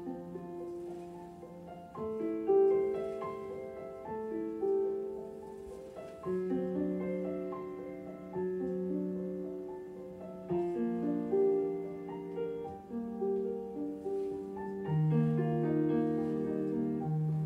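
Solo piano music, chords and melody notes changing about every half-second to a second, as accompaniment for a ballet barre exercise.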